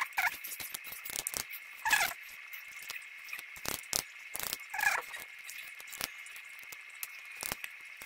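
Small metallic clicks and taps of tweezers against the brass cylinder and its pins and springs as the lock is taken apart. Three short squeaks falling in pitch stand out: one right at the start, one about 2 s in and one about 5 s in. A faint steady high whine runs underneath.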